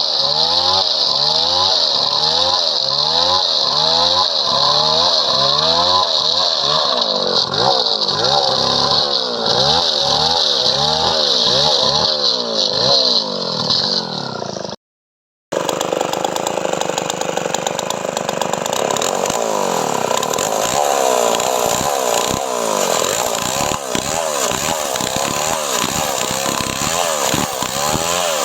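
Chainsaw running and cutting through padauk wood, its engine pitch wavering up and down again and again as it works under load. The sound drops out completely for under a second about halfway through.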